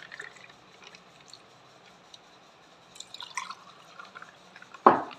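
Papaya juice poured from a steel vessel over ice into steel tumblers: faint liquid pouring and splashing with a few light clicks. A single sharp knock comes near the end and is the loudest sound.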